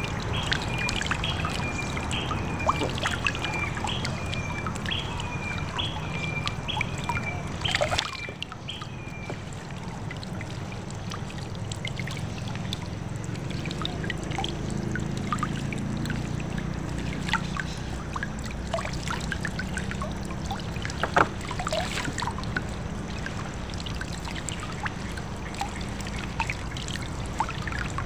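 Water trickling and dripping off a gill net as it is pulled hand over hand out of the river, with small splashes and light knocks of the net and floats. A repeated high chirp sounds about once a second through the first ten seconds.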